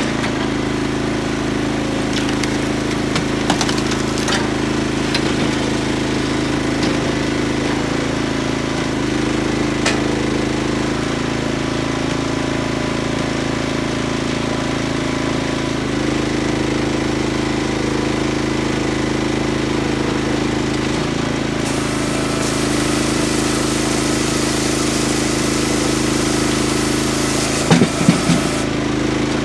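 Old tractor engine running steadily at speed, powering a firewood processor. A hiss joins in during the last third, and a few knocks sound near the end.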